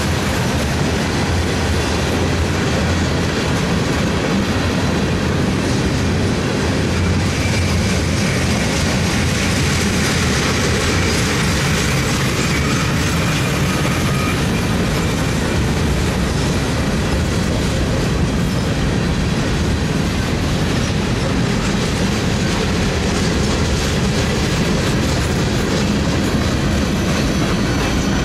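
Freight cars of a passing mixed freight train (tank cars and covered hoppers) rolling by: a steady, loud noise of steel wheels running on the rails.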